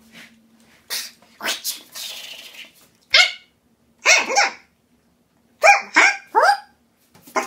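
Dog barking in short sharp barks: one about three seconds in, then a quick pair, then a run of three. Before them come a few short breathy, hissing noises.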